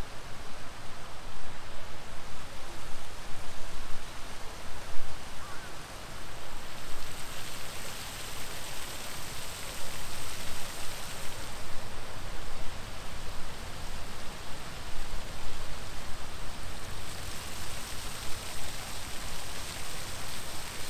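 Steady outdoor rushing noise with no clear single source, turning brighter and hissier from about seven seconds in until about seventeen seconds.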